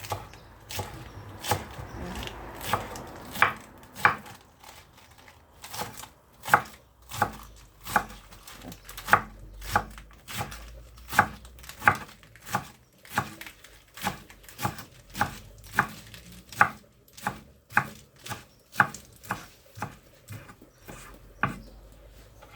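Knife slicing salad leaves on a chopping board: a steady run of sharp chops, roughly two a second.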